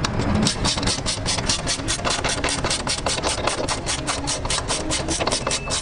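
Rapid, even clicking of a ratchet wrench running down the bolts of a bolt-in ball joint on the upper control arm.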